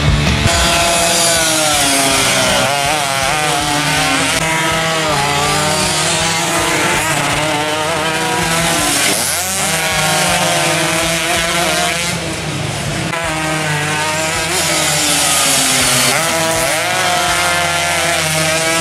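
Two-stroke 125 cc underbone racing motorcycles at full throttle, more than one engine at once, their high, buzzing note climbing and dropping again and again as they accelerate and ease off.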